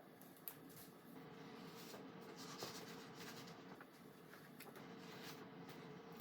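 Near silence: quiet room tone with a faint steady hum and a few soft rustles and clicks scattered through it.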